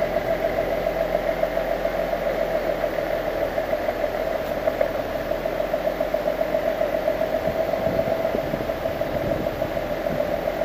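Align T-Rex 600EFL Pro electric RC helicopter running steadily: a high motor and rotor whine with a fast flutter.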